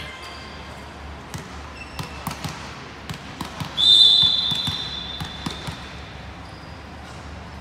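Volleyball referee's whistle: one high, sharp blast about four seconds in that fades over a second or so, the signal that authorizes the serve. A few scattered knocks come before it.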